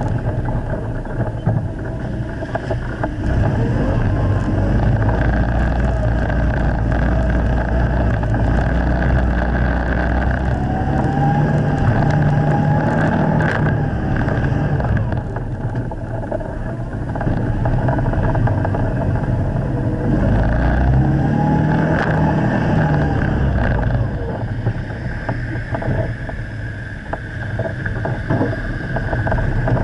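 Steyr-Puch Haflinger's air-cooled flat-twin engine running under load as the vehicle drives off-road. The engine revs up and eases off twice, once about a third of the way in and again past the middle, with occasional knocks from the vehicle over rough ground.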